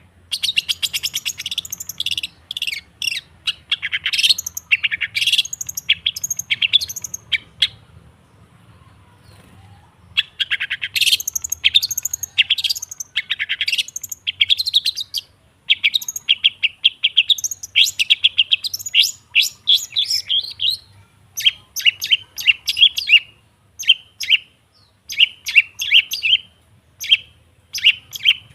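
Long-tailed shrike (cendet) singing in fast runs of sharp chattering notes, with a pause of about two seconds near the middle before the rapid bursts resume.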